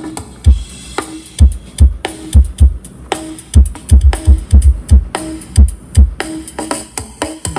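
Electronic dance music with a heavy kick drum, about two thumps a second, played loud through the MD18 DIY subwoofer cabinets, with short higher synth notes between the beats.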